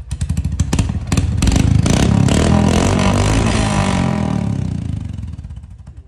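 Royal Enfield Hunter 350's single-cylinder engine revved with its silencer removed, running through the bare open exhaust pipe. The revs climb within the first second, hold, then fall away over the last two seconds.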